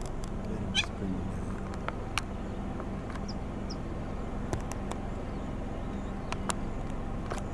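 Outdoor ambience: a steady low hum with scattered sharp clicks, one short wavering animal call about a second in, and two brief high chirps a few seconds later.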